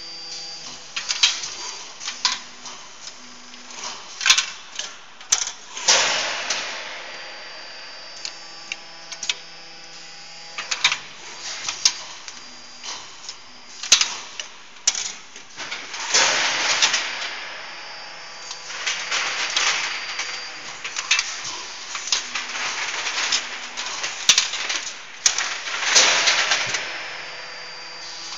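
Pneumatic part-handling mechanism of an automatic cold-forging hydraulic press line working: irregular sharp metallic clicks and knocks, with a long hiss of compressed air three times, about ten seconds apart, over a faint steady machine hum.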